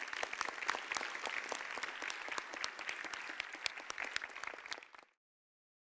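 Audience applauding in a large hall, a dense patter of claps that cuts off abruptly about five seconds in.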